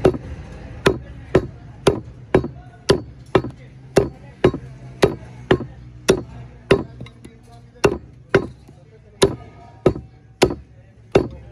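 Heavy meat cleaver chopping a rack of mutton ribs into pieces on a wooden chopping block: a steady run of sharp chops, about two a second.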